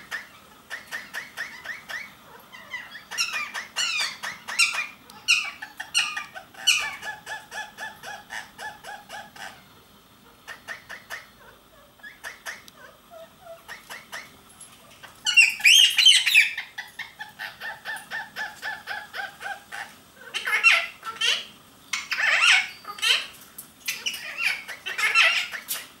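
Indian ringneck parakeets chattering in fast runs of repeated short calls, broken by louder squawks about fifteen seconds in and several more near the end.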